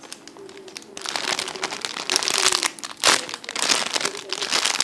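Plastic packaging crinkling as it is handled, in irregular bursts that grow louder from about a second in and peak around three seconds in.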